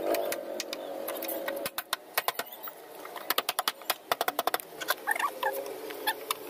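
Plastic door trim panel of a Tata Indica Vista being fitted back onto the door: a run of sharp clicks and taps as it is pressed and knocked into place, coming in quick clusters from about two seconds in.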